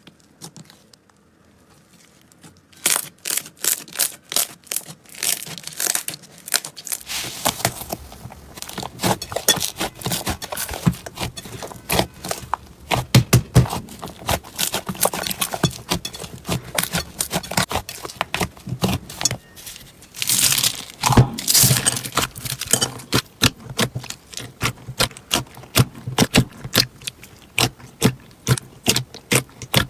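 Slime being squeezed and pressed, making a dense run of crackling clicks and pops that starts about three seconds in.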